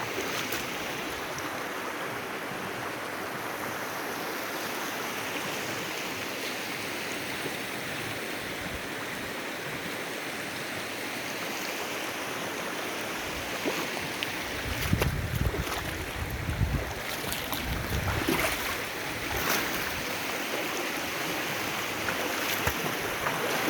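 River water rushing steadily. Irregular low thumps and a few knocks come in about two-thirds of the way through.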